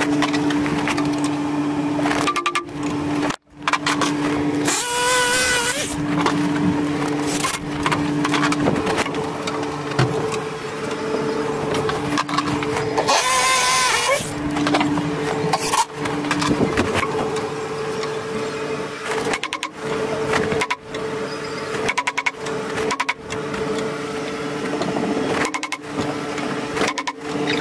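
Power drill whirring in two short bursts, about five seconds in and again near the middle, driving into wooden wall framing, amid scattered knocks of wood being handled. A steady hum runs underneath.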